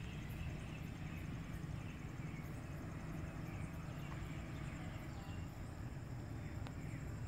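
Night outdoor ambience: insects chirping in a steady high pulsing trill over a constant low rumble.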